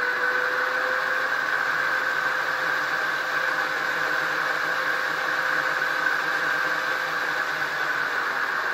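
Simulated electric locomotive sound for an ÖBB 1043 from a Zimo sound decoder, running the free 8-bit sound project on an MX645, played through two small 18x13x6 mm Dumbo speakers in the model. It is a steady fan-like hiss with a motor hum whose pitch rises slightly, then holds.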